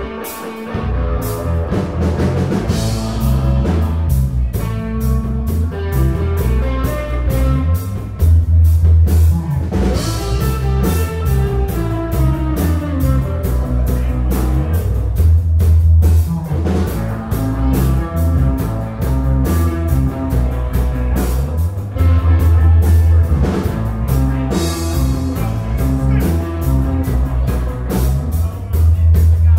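Live rock band playing: electric guitar, electric bass and drum kit together, loud and steady.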